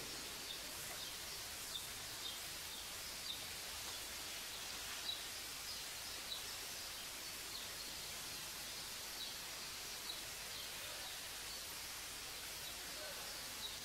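Quiet, steady background hiss of room tone and recording noise, with faint short high chirps scattered through it about every second or two.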